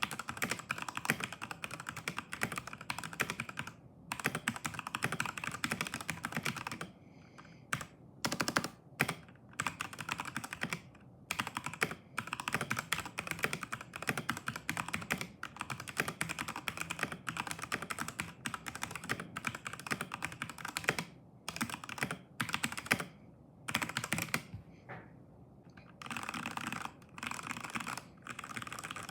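Stock, unmodded Redragon K617 Fizz mechanical keyboard being typed on quickly, with fast runs of key clacks broken by short pauses and a longer pause a little before the end.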